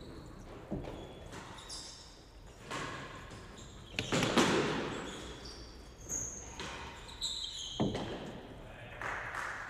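A few sharp knocks of a real tennis ball struck by rackets and hitting the court walls, echoing in the hall. The loudest comes about four seconds in.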